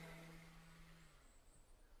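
Near silence: a faint, steady low hum cuts off about a second in.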